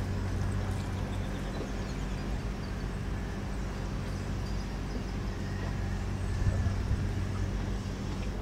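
An engine running steadily somewhere, a low even hum, while petrol is poured from a plastic jerrycan through a funnel into a small outboard motor's fuel tank.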